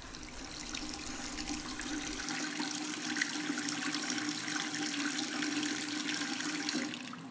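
Water running from a tap into a sink while a man washes his face, with small splashes in a steady rush that builds over the first couple of seconds and eases off near the end.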